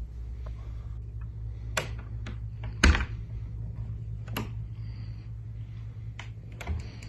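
A handful of sharp clicks and knocks, the loudest about three seconds in, over a steady low hum.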